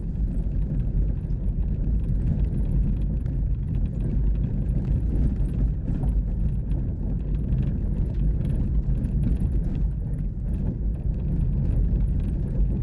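Vehicle driving, heard from inside: a steady low rumble with frequent rattles and knocks.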